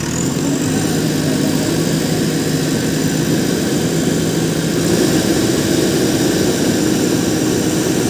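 JCB backhoe loader's diesel engine revving up and running hard as the backhoe arm is worked. Its pitch steps higher about five seconds in.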